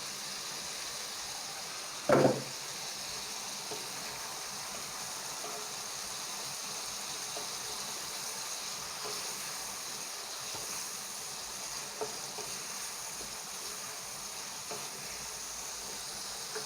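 Squid and potato stir-fry sizzling steadily in hot oil in a pan, with one loud knock about two seconds in and a few faint ticks later.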